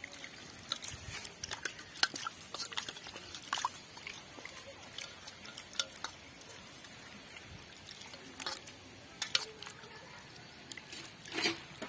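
Small snails being rubbed and rinsed by hand in water in a steel bowl to wash off mud: faint splashing and sloshing, with scattered sharp clicks of the shells against the bowl and each other.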